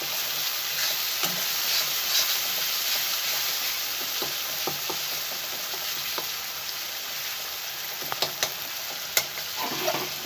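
Tomatoes frying in hot oil for a dal fry tempering: a steady sizzle with a spoon scraping and tapping the pan as it is stirred, the taps coming more often near the end. The tomatoes are cooking down until soft.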